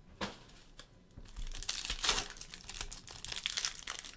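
Trading-card pack wrapper crinkling and being torn open by hand: a short crackle at the start, then a longer run of dense rustling and tearing from about a second in.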